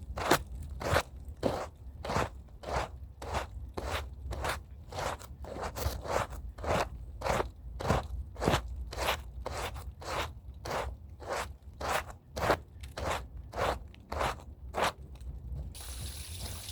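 Stiff brush scrubbing a rug by hand: rhythmic scraping strokes, about two a second, stopping shortly before the end.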